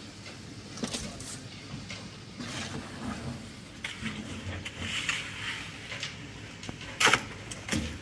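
A shovel scraping and slapping through wet concrete as it is spread over a rebar roof slab, with scattered scrapes and knocks and one loud sharp scrape about seven seconds in.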